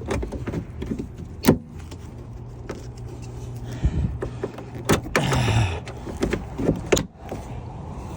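Clicks, knocks and brief scraping of seat belt hardware, plastic and metal, being handled and worked on, over a steady low hum.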